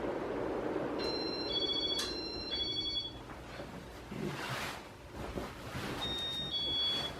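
Ceiling fan blades running fast with a steady air rush that dies away about three seconds in. Over it come high electronic beeps alternating between two pitches, each about half a second long: four from about one second in with a click among them, then two more near the end.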